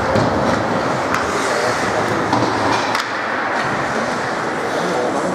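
Ice hockey play in an arena: skates scraping and carving the ice in a steady rolling rush, with a couple of sharp clacks about a second in and about three seconds in, echoing in the rink.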